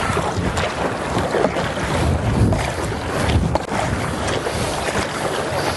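Wind buffeting the microphone over water splashing from double-bladed paddle strokes on a stand-up paddleboard.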